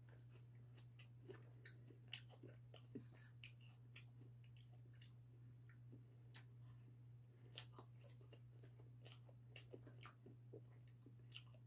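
Faint eating sounds: a metal fork tapping and scraping a small ceramic bowl and quiet chewing of soft fresh-cream cake, as scattered short clicks over a steady low hum.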